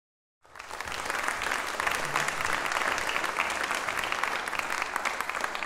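Audience applauding, starting suddenly about half a second in and keeping up a steady clatter of many hands.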